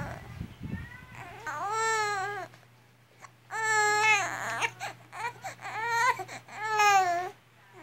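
Four-month-old baby crying in a string of about five short wails, each under a second and arching up then down in pitch.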